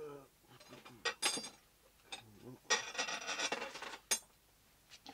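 Rubbing and scraping handling noise, with sharp knocks about a second in and again about four seconds in, and a longer stretch of scraping around the three-second mark.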